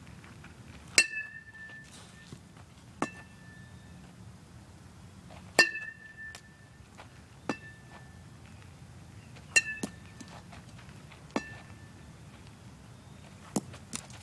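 Baseball bat striking balls: seven sharp ringing pings about two seconds apart, every other one louder.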